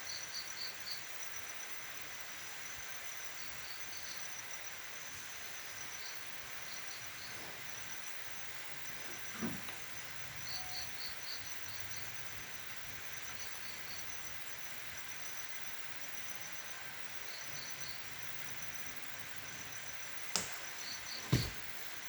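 Insects chirping in short, repeated trills of rapid pulses over a steady high background drone. There are a few sharp knocks or snaps: one about nine seconds in and two close together near the end.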